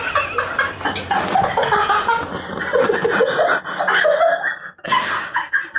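Men laughing hard and at length, in rough, breathy bursts that ease off near the end.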